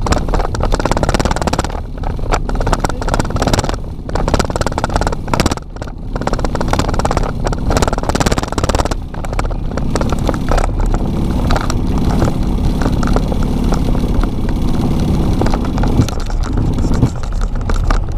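Boeing 737 running along the runway, heard from inside the cockpit: a steady loud rush of engine and airflow noise broken by frequent short knocks.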